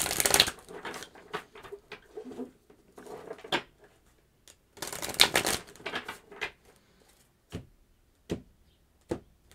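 A deck of tarot cards shuffled by hand: two bursts of rapid card flicking, one at the start and one about five seconds in, with scattered flicks between. Near the end come three sharp taps as the deck is knocked square on a wooden table.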